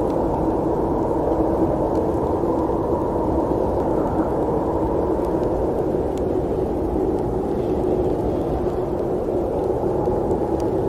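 Steady snowstorm wind, a dense, muffled rushing noise with almost no treble and no gusts or breaks. A few faint ticks sit under it.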